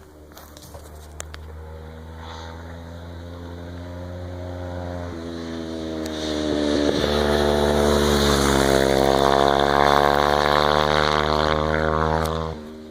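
Motorcycle engine accelerating: its pitch climbs over several seconds with a couple of breaks, and it grows much louder from about six seconds in before cutting off abruptly near the end.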